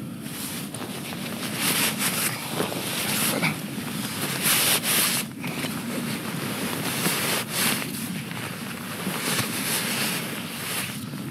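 Nylon fabric of a US Army sleep system rustling and crumpling as it is handled and packed, with louder swells every second or two.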